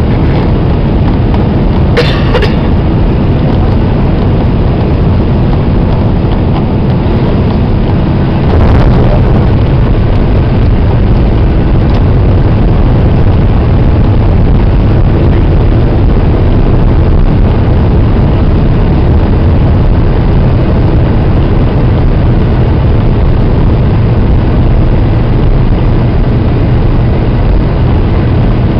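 Cabin noise of a Boeing 767-300 on its landing roll: a loud, steady, deep rumble of engines and rolling gear. A sharp knock comes about two seconds in, and the rumble grows a little louder about nine seconds in.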